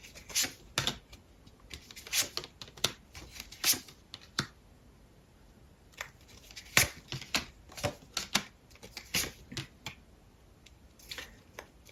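Tarot cards being handled: drawn from the deck and laid down, giving a string of irregular short snaps and rustles.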